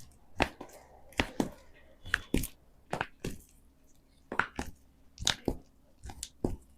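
A series of sharp, short knocks or slaps on a patient's body during a chiropractic treatment, coming mostly in pairs about once a second.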